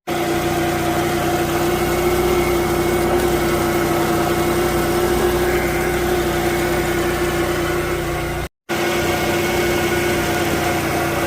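Car engine idling with a steady hum and a constant whine, from a 2000 Chevy Cavalier. The sound cuts out briefly about eight and a half seconds in, then resumes unchanged.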